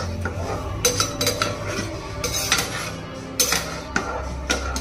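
A spoon scraping and knocking against the sides of a cooking pot while a thick curry is stirred, in irregular clinks and scrapes.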